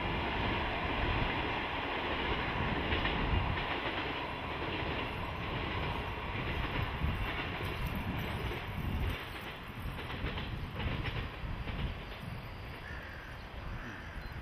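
Freight train of oil tank cars running past on the rails, a steady rumble with wheels clacking over rail joints, fading slowly as the train draws away.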